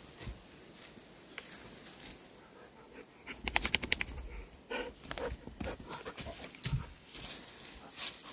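Dogs vocalizing: a fast run of short, sharp cries about halfway through, then a few more spaced out.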